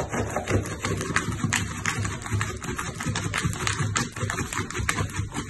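A puppy's claws scratching and pawing at a cardboard box flap: quick, repeated scrapes on the cardboard, about three a second.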